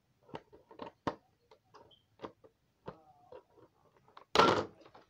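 Irregular small clicks and taps of plastic toy pieces and packaging being handled, with a brief louder rustle about four seconds in.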